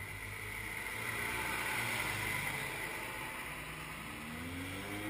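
Diesel engine and tyres of a coach driving past and pulling away, the noise swelling about two seconds in and then easing off. Near the end another engine note rises and falls.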